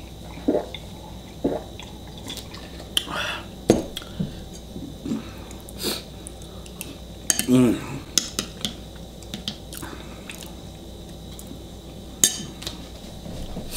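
Eating and drinking sounds: a couple of gulps of cola from a glass, then scattered clinks and knocks of chopsticks and dishes against bowls, with slurps and one short throaty vocal sound about halfway through.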